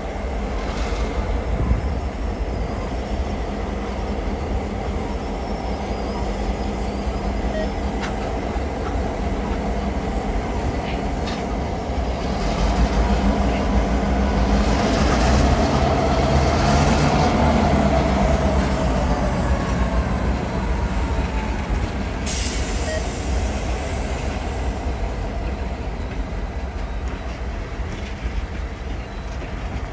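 CN diesel locomotives moving past: a steady low engine rumble with wheel and rail noise, growing louder midway as the units go by closest. In the loudest stretch a thin whine rises and then falls in pitch.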